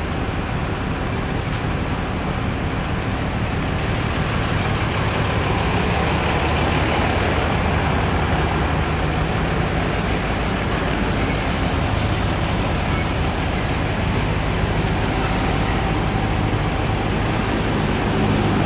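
Heavy vehicle engine idling in the depot, a steady low rumble that does not rise or fall.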